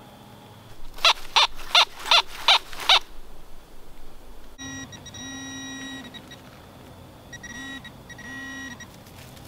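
Six loud, evenly spaced call-like notes, about three a second, near the start. About halfway through, a Fisher F19 metal detector sounds its steady target tone in three bursts as the coil sweeps over buried metal.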